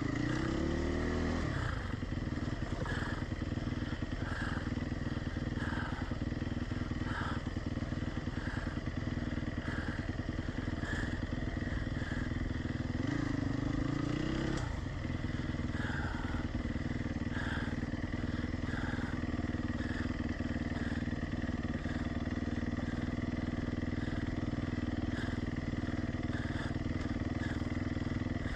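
Dirt bike engine running steadily at low revs, rising briefly and dropping back at the start and again about halfway through.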